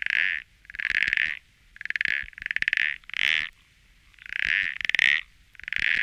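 A frog calling: a rapidly pulsed croak about half a second long, repeated about eight times, several in close pairs.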